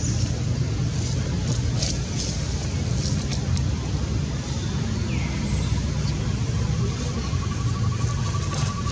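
Steady low background rumble, with a short high falling chirp about halfway through and a faint, fast-pulsing high tone starting near the end.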